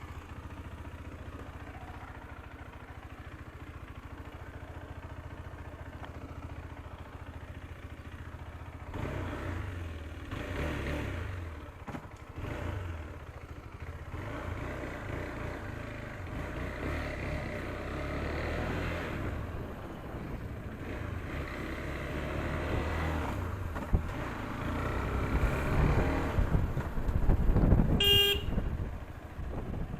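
KTM 390 Adventure's single-cylinder engine running as the motorcycle is ridden, its sound rising and falling with the throttle. A vehicle horn toots briefly near the end.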